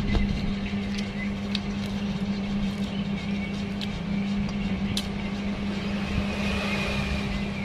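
A steady low mechanical hum with a few short, light clicks, of fingers against a glass plate during eating by hand.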